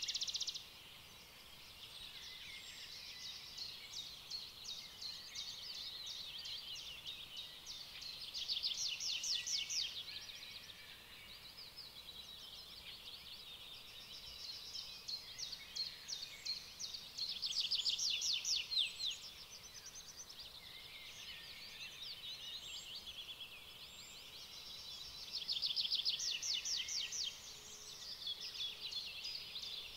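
Dense, high-pitched chirping and trilling of small birds, going on throughout and swelling louder for a couple of seconds several times.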